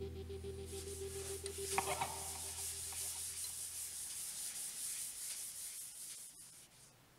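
Paper towel pressed against a wooden box spinning on a lathe, rubbing in an oil finish: a steady hiss that fades out near the end, with a brief clatter about two seconds in.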